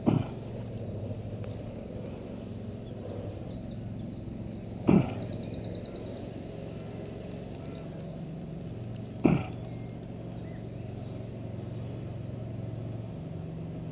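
Three sharp thumps, about four and a half seconds apart, over a steady low hum. A short run of fast, even clicking follows the second thump.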